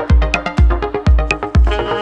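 Background electronic dance music with a steady kick drum at about two beats a second and sharp ticks between the beats; a held synth chord comes in near the end.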